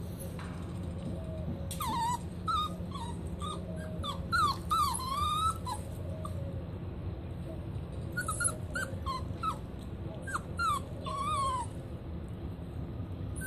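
German Shorthaired Pointer puppies, about five weeks old, whimpering and whining in short, high calls that bend up and down, in two bouts of several calls each. A steady low hum runs underneath.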